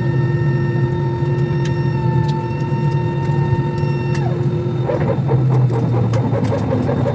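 Airbus A320 cabin noise: a steady low hum with several held tones. About four seconds in, one of the tones slides down and stops, and a fast pulsing sound follows near the end.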